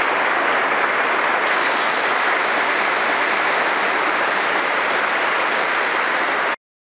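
Audience applauding steadily, then the sound cuts off abruptly near the end.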